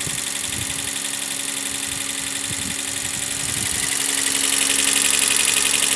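Toyota 1G-FE inline-six engine idling cold just after starting, with a steady hiss that grows louder about four seconds in. The engine is blowing crankcase gases out through its breather, with one cylinder down on compression.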